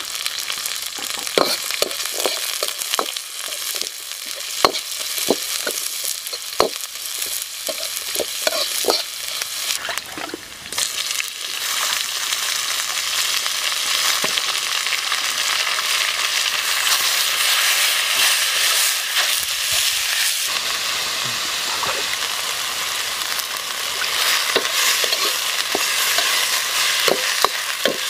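Stir-frying in a steel wok: garlic, lemongrass and chili sizzle in hot oil with frequent sharp clicks and taps against the pan, then the sizzle turns louder and denser about eleven seconds in as raw chicken liver goes in. Near the end a metal ladle stirs and clicks against the wok again.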